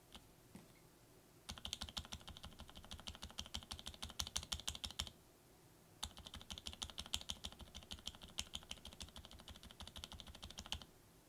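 Typing on a mechanical keyboard fitted with lubed Kailh BOX Silent Pink switches in an aluminium plate under ABS keycaps. Rapid keystrokes come in two bursts of about four seconds each, with a pause of about a second between them.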